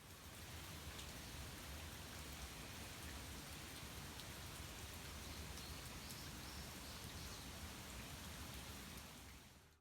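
Steady rain falling, an even hiss with faint scattered drop ticks, fading in at the start and fading out near the end.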